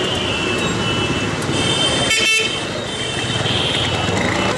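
Street traffic with a steady noise of engines and several short horn toots.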